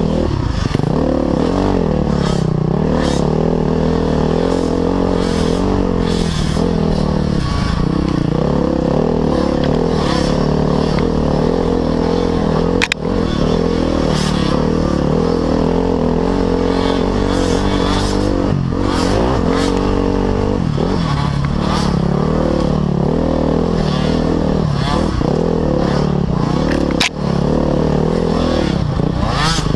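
Off-road motorcycle engine running under throttle, its pitch rising and falling continuously as the rider works the throttle. There are two brief dips in the sound, about halfway through and again near the end.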